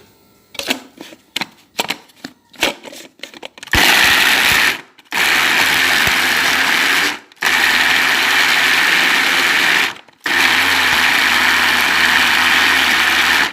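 A few clicks and knocks of handling, then an electric food grinder run in four bursts of a few seconds each, with short stops between. It is grinding a thick mix of steamed garlic and dried figs with a little olive oil.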